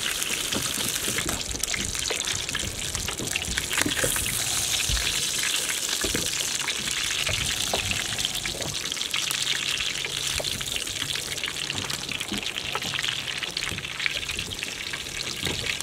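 Whole trevally shallow-frying in hot oil in a frying pan: a steady crackling sizzle, with a few light taps as the fish are turned with chopsticks.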